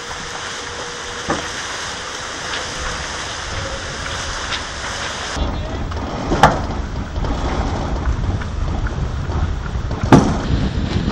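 Wind buffeting the microphone and water rushing past the hull of a Multi50 racing trimaran under sail. A few sharp knocks come from the deck gear, about a second in, about six seconds in and near the end. The wind rumble grows heavier and deeper about halfway through.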